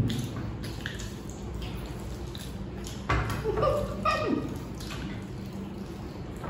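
Wet eating sounds: small mouth smacks and rice being squished and mixed by hand. About three seconds in there is a sudden louder sound, followed by a brief wordless vocal sound.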